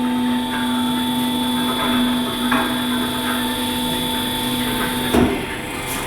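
Motor of a large truck-tyre changing machine running with a steady hum, then stopping with a short clunk about five seconds in.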